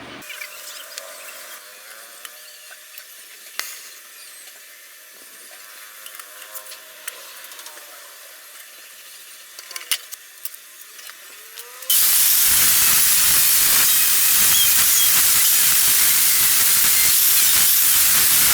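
Oxy-acetylene torch hissing, with scattered small clicks for about twelve seconds; then a much louder, steady hiss starts suddenly and holds to the end.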